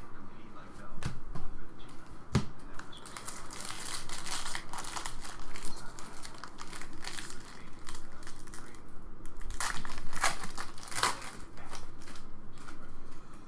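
Foil wrapper of a baseball trading card pack crinkling as it is handled and torn open, with a few louder rips about ten seconds in. Cards click against each other as they are sorted.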